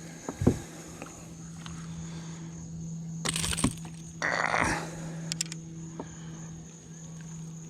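Steady insect chorus with one constant high tone, over a low steady hum. A sharp knock comes about half a second in, and two short bursts of noise come in the middle.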